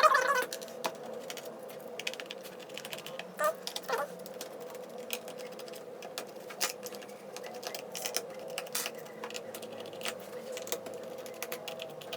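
Scattered small clicks and ticks of a screwdriver turning out the screws of a laptop's bottom cover one by one, over a faint steady hum.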